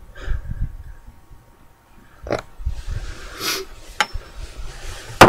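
Close handling noise: hair and clothing brushing against the microphone with low bumps, a breathy hiss in the middle, two sharp clicks, and a loud sharp knock just before the end.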